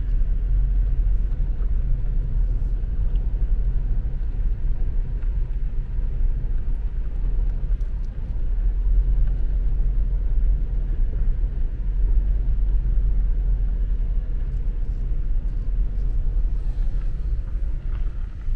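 Car driving slowly on a gravel road, heard from inside the cabin: a steady low rumble of engine and tyres.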